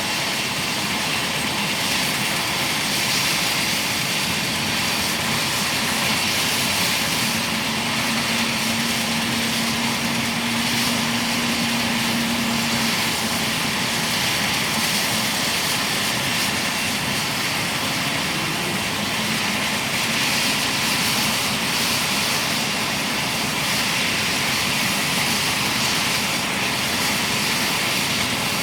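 Military helicopter turboshaft engines running on the ground: a steady high turbine whine over a constant rush of air.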